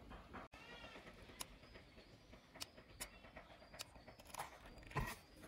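Faint scattered clicks and taps from handling a small lithium-polymer battery and its charging board on a cloth-covered table, the loudest a knock about five seconds in. A short high-pitched call sounds just after the start.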